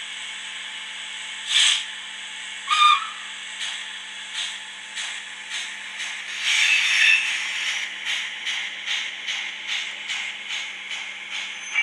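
Sound decoder of a Modelbex 141 TA model steam tank locomotive: a burst of steam, a short whistle, then exhaust chuffs that quicken as the locomotive pulls away, with a longer hiss of steam midway, over a steady background hiss. The exhaust beats are set through the decoder's CVs to keep time with the wheels.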